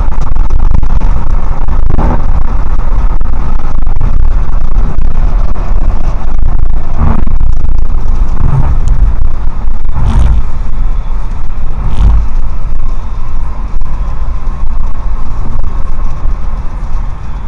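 Road noise of a car driving on a highway, heard from inside the cabin: a loud, steady low rumble of tyres and engine, broken by a few short thumps from bumps in the road.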